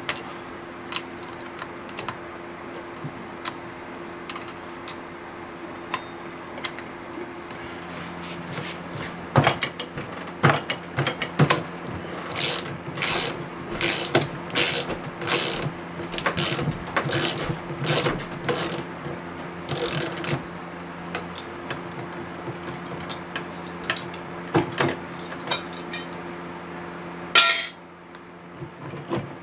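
Ratchet wrench being worked on the bolts of a Vittorazi Moster 185 paramotor engine during teardown. Scattered clicks are followed by a run of about a dozen even strokes in the middle, and there is one loud clatter near the end.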